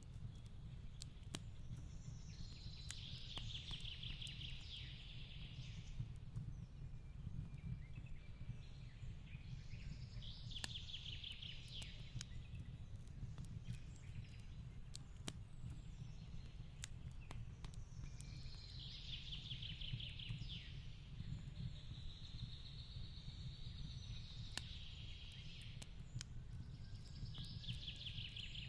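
Fireplace crackling with scattered sharp pops over a low, steady rumble. A songbird sings a fast trilled phrase about every seven or eight seconds, four times in all.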